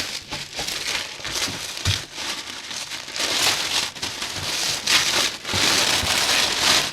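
Packaging crinkling and rustling in uneven bursts as items are handled and unwrapped.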